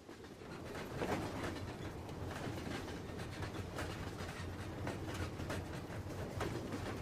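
Train running on the rails: a steady low rumble with irregular knocks and rattles, fading in over the first second and then holding steady.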